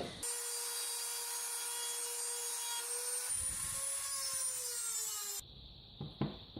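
Dremel rotary tool running at high speed and cutting into a steel washer, a steady high whine with grinding hiss that wavers slightly in pitch as the load changes. It stops about five seconds in, followed by a few small knocks.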